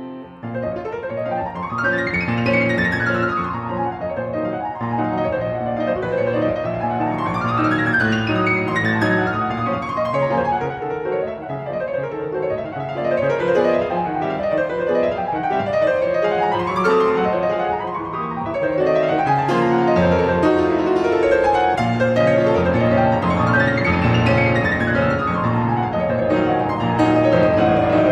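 Background piano music with fast rising and falling runs of notes.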